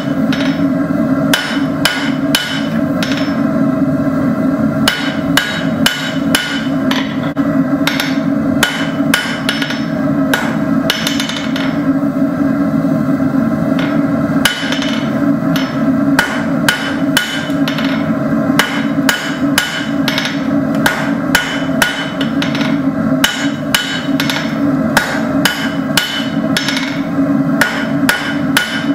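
Blacksmith's hand hammer striking a hot steel rod on an anvil in quick runs of sharp ringing blows, about three to four a second, pausing briefly twice, over a steady drone.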